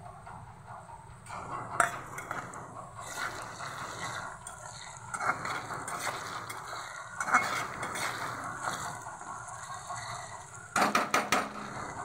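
Sliced onions and ginger-garlic paste sizzling in hot oil in a kadhai while a metal spoon stirs and scrapes against the pan, with occasional knocks and a quick run of sharp taps near the end.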